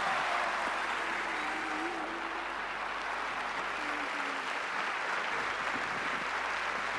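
Audience applauding, a dense steady clapping that holds throughout.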